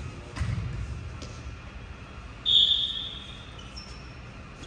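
Indoor volleyball game in a gym: a dull ball thud about half a second in, then a short, loud, shrill high tone about two and a half seconds in that fades away, amid gym echo.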